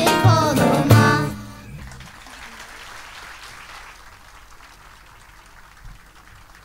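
The last notes of a Turkish folk song: children's voices with oud and bağlama, ending in a held final chord about a second and a half in. Audience applause follows and slowly fades.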